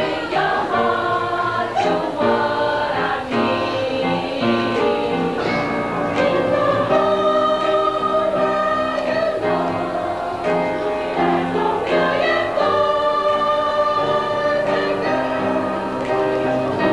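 High school seniors singing together as a choir, a slow song in long held notes.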